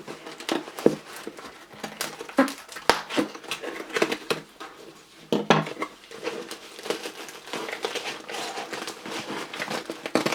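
A taped shipping package being cut and pulled open by hand: packaging crinkling and rustling, with irregular scrapes and sharp clicks throughout.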